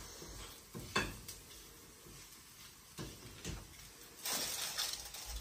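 Spatula clinking and scraping on a flat griddle (tawa) while a gram-flour pancake cooks: one sharp clink about a second in, a couple of lighter knocks around three seconds in, and a burst of hiss near the end.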